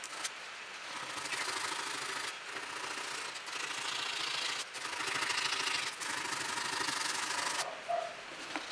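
Sanding of a forged steel knife blade, in long abrasive passes broken by short pauses; it stops near the end.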